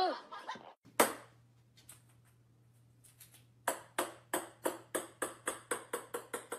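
A small ball bouncing on a hard floor: a run of quick knocks beginning past the middle that come faster and fainter as it settles. A single sharp click about a second in, and a faint low hum underneath.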